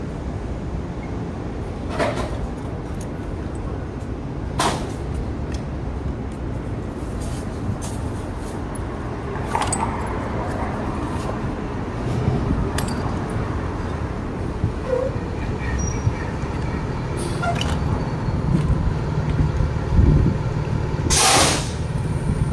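Steady city street traffic rumble with a few sharp clicks and knocks scattered through it. Near the end a large truck's engine hum grows louder and there is a short, loud hiss.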